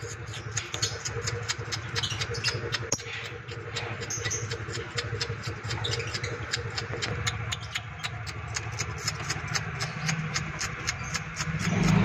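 An engine idling steadily with a fast, even pulse, the loudest sound throughout. A few short, faint chirps from small caged parrots come through in the first half. Right at the end the engine noise swells as a vehicle grows louder.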